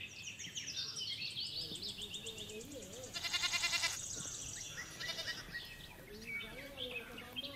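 A loud, quavering livestock bleat about three seconds in, lasting under a second, with a fainter bleat around five seconds. Birds chirp during the first two seconds.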